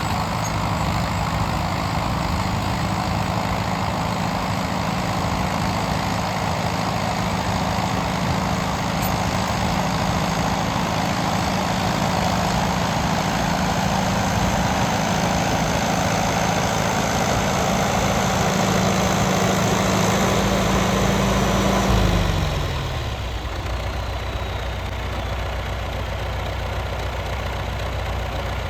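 John Deere 450C bulldozer's diesel engine running steadily at raised speed on a test run after reassembly; about three quarters of the way through its pitch falls as it is throttled back, and it settles to a slower, quieter idle.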